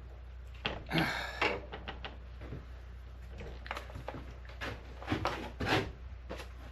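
Hands and tools working on a chainsaw: a series of clicks and knocks, with a longer scraping rasp about a second in and a cluster of knocks near the end.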